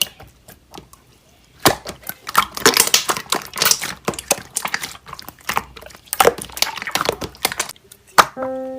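Slime being squished and pressed by hand, giving dense irregular clicking and crackling as trapped air pops. Background music comes in near the end.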